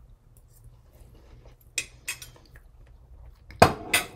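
A metal fork clinking against a ceramic plate, two light clinks about two seconds in, then two much louder knocks in quick succession near the end.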